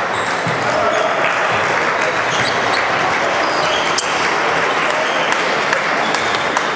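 Table tennis balls clicking off bats and tables at many tables at once, over the steady murmur of a large sports hall. One sharp hit about four seconds in stands out above the rest.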